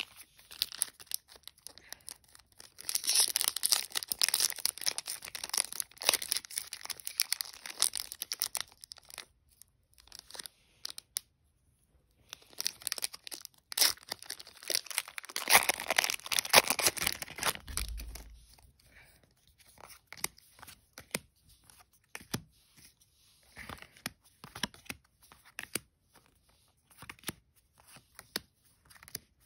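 Trading cards being handled by hand: slid over one another and gathered up into a stack, in two long spells of papery rustling followed by scattered light clicks and flicks of single cards.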